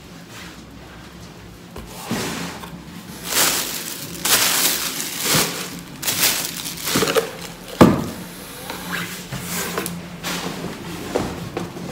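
Cardboard box and plastic packaging rustling and scraping as things are handled and lifted out of a delivery box, in a run of noisy bursts, with one sharp knock about eight seconds in.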